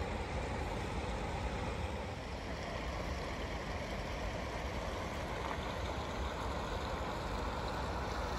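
Steady rushing of flowing water, with a low rumble underneath.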